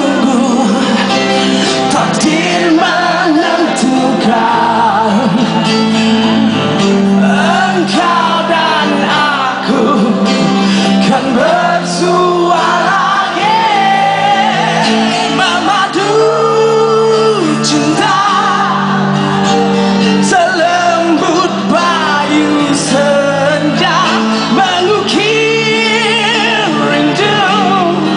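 Live band performing a song with a male lead vocal, the singer's held notes wavering over steady accompaniment.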